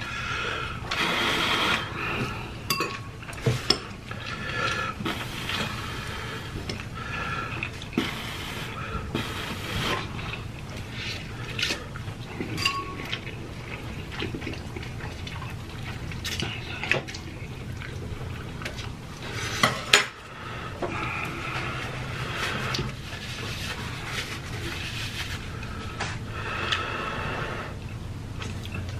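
Close-up eating sounds: noodles slurped and chewed, with chopsticks and a fork clinking and scraping against a metal pan. A sharp clink about twenty seconds in is the loudest sound.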